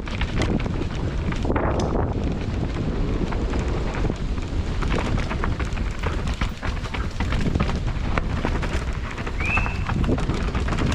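Mountain bike descending a rough trail at speed: wind rushing over the camera microphone with constant rattling and clattering knocks from the bike over the rough ground. A short squeal sounds near the end.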